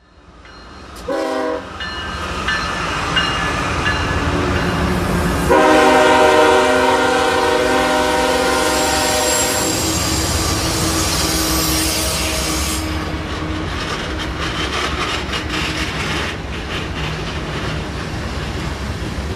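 Diesel locomotive horn giving a short blast about a second in, then a long chord blast from about five seconds in, over the low rumble of the train. Wheels clack as freight cars roll past in the second half.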